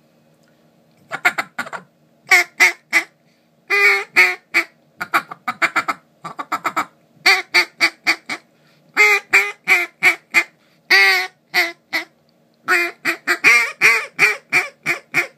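Basin Calls HalfPint modified double reed duck call, hand-blown in a string of short quacking notes. The notes come in runs of three to six with brief pauses between runs.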